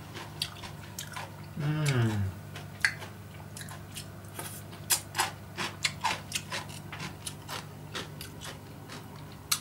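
A person chewing and crunching pieces of fermented daikon kimchi, with wooden chopsticks clicking against a ceramic crock, as a string of short sharp crunches and clicks. About two seconds in, a short hummed "mmm" falling in pitch.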